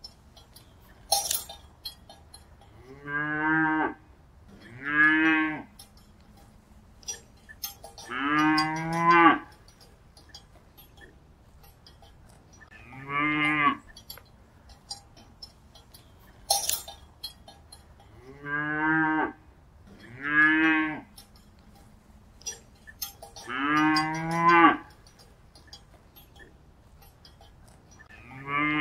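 A cow mooing repeatedly: about eight short calls with pauses between them, some coming in pairs. Two sharp clinks sound, one about a second in and one about halfway through.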